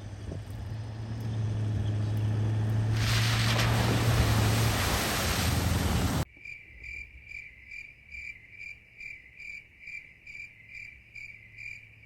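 A vehicle running, a steady low hum under a rushing noise that swells about three seconds in. About six seconds in it cuts abruptly to an insect chirping evenly, about three chirps a second.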